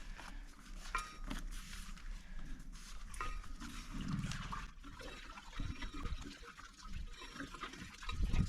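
Water splashing and dripping, with scattered knocks and scrapes, as a garden hose and temporary submersible well pump are hauled up out of the well casing.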